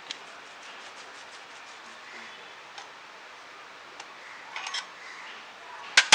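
Light ticks and small metallic clicks from handling a metal sev press (chakli mould), with a sharp, ringing metal clink of its parts near the end, over a steady background hiss.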